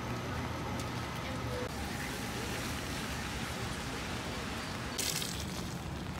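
Wet city street ambience in the rain: a steady wash of traffic and rain noise, with a brief hiss about five seconds in.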